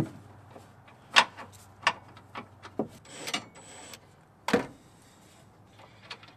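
Scattered metal clicks and knocks as bolts are started into a steel plow-mount plate under the frame, the sharpest about a second in and again about four and a half seconds in. A cordless drill/driver runs a bolt in briefly about three seconds in.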